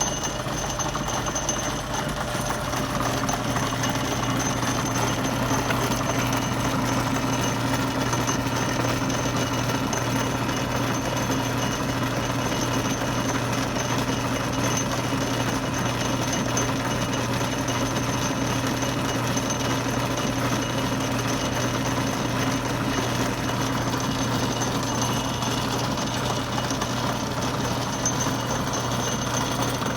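A vintage lathe running steadily under power, its 3D-printed power feed gears turning, with a constant machine hum.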